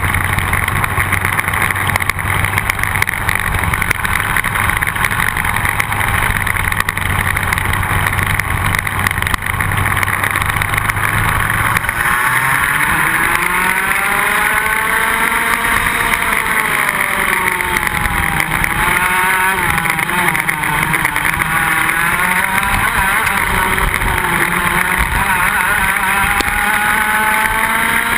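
Iame X30 125cc two-stroke kart engine heard onboard under a steady rushing noise. For about the first twelve seconds it holds a steady low note, then it revs hard, its pitch climbing and dropping again and again as the kart accelerates and brakes through the corners.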